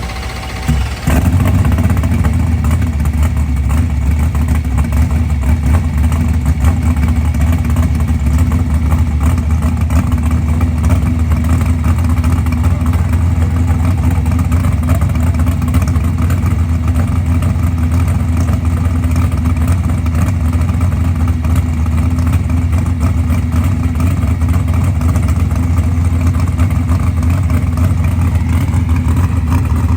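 Drag-racing Camaro's engine starting about a second in, then running steadily, loud, with its exhaust rockers freshly relashed after a broken exhaust rocker was replaced.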